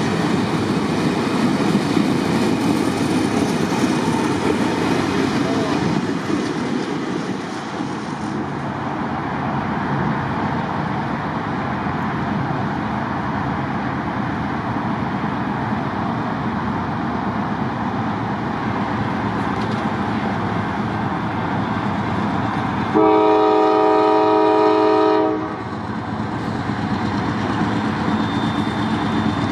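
Heavy railcars rolling past close by, their wheels clicking over the rail joints, easing after about seven seconds to a steadier, quieter rumble of an approaching freight train. About 23 seconds in, a locomotive air horn sounds one long blast of several notes at once, lasting a little over two seconds.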